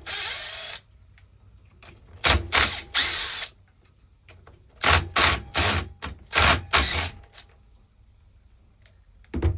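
A power drill-driver fitted with a 12 mm socket runs in several short bursts, backing out the bolts on top of the pump head.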